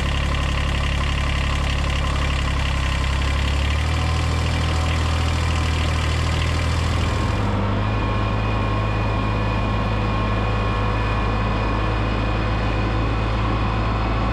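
Kubota BX compact tractor's three-cylinder diesel engine running steadily while its front-mounted snowblower throws snow. The engine note shifts slightly about four seconds in and again about seven seconds in.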